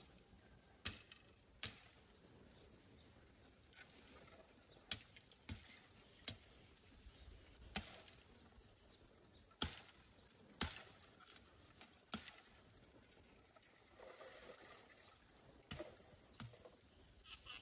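A blade striking bamboo: about a dozen sharp, short knocks at irregular intervals, roughly one every second or so, with a brief rustle a little after the middle.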